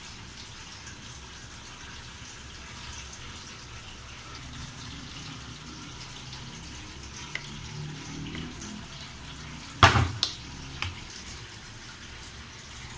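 Glass bowls clinking: a sharp glass-on-glass knock about ten seconds in, then two lighter taps, as a small glass bowl of chilli flakes is tipped against a cut-glass mixing bowl. A steady rushing hiss runs underneath.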